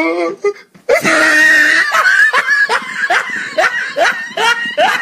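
A man laughing hard: a loud high burst about a second in, then a run of short rising cries, two or three a second.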